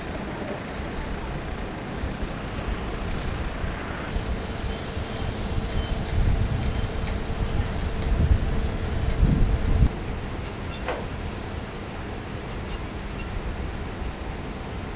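A fuel truck's engine and pump run steadily while an airliner is being refuelled. A louder low rumble builds for a few seconds and cuts off suddenly about ten seconds in.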